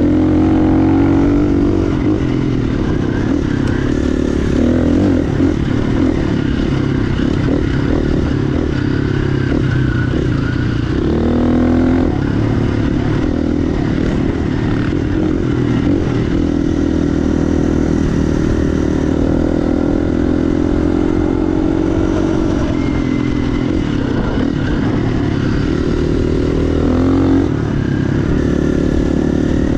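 KTM dirt bike engine running under way, its pitch rising and falling as the throttle is worked, with a clear rev-up about eleven seconds in and another near the end.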